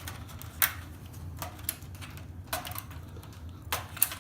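Irregular sharp clicks and taps of a screwdriver and small metal parts being handled while unscrewing a circuit board from a set-top box's chassis, over a steady low hum.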